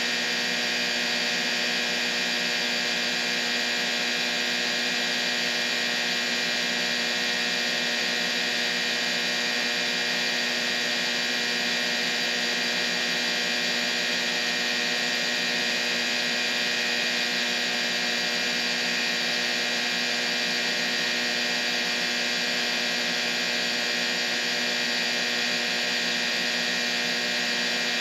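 Steady, unchanging tinnitus-masking noise: a hiss strongest in the upper-middle range, with many held tones running through it like a hum. It does not change in level or pitch.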